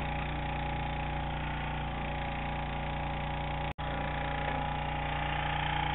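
A small engine on a bowfishing boat running with a steady, even drone. The sound cuts out for an instant a little over halfway through.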